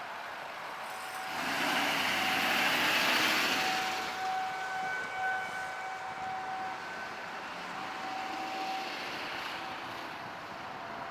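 Outdoor tornado warning siren sounding a steady tone that swells and fades in loudness over the seconds. A passing vehicle adds a louder rush of noise between about two and four seconds in.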